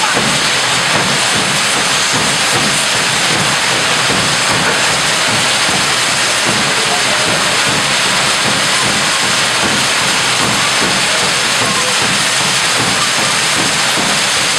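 Firework fountains (carretilles) on devils' pitchforks, burning with a loud, steady hiss of spraying sparks.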